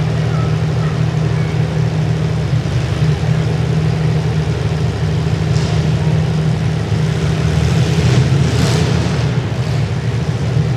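Several compact demolition derby cars' engines running loud and continuous, with louder noisy surges about halfway through and again near the end.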